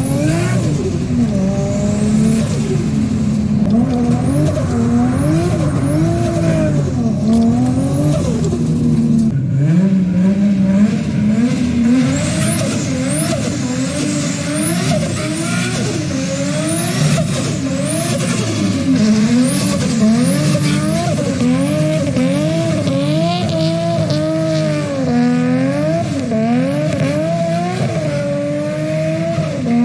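Turbocharged RB25DET straight-six revving hard, its pitch rising and falling over and over, with tyre noise as the car does skids.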